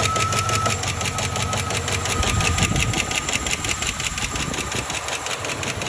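Chevy Silverado's 4.8-litre V8 idling with a fast, even ticking knock keeping time with the engine. The owner takes it as serious but cannot say whether it is a rod knock, a lifter tick or an exhaust leak.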